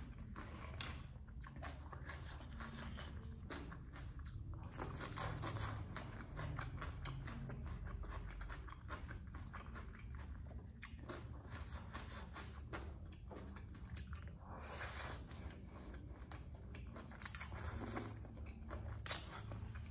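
Close-up mouth sounds of eating: wet chewing and crunching of raw vegetables and salad, with a run of short sharp crunches throughout. Later, glass noodles are slurped up from chopsticks in a few brief noisy bursts.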